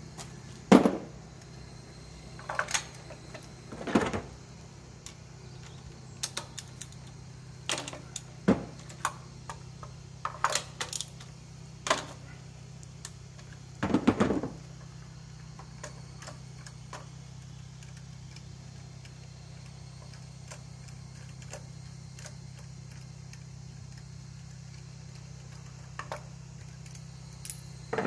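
Metal hand tools clinking and tapping as a ratchet and socket extension are handled and set into the spark plug wells of a Suzuki K6A three-cylinder engine. The clinks come irregularly, loudest about a second in and again around fourteen seconds, then only a few faint ticks over a low steady hum.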